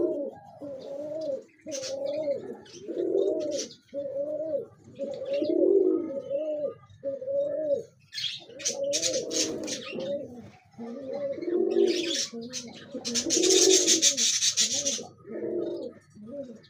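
White domestic pigeons cooing continuously, one rising-and-falling coo phrase following another about every second: the bow-coo of a male courting, puffed up with a fanned, dragging tail. Two stretches of a higher, rasping sound break in partway through.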